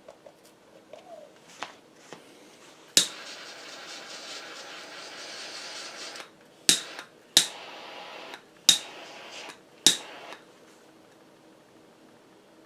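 A sharp click followed by about three seconds of steady hiss, then four more clicks about a second apart, each followed by a shorter hiss that stops a little after the last click.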